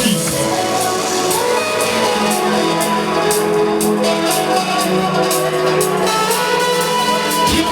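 Music with long held chords and a light, regular percussion beat.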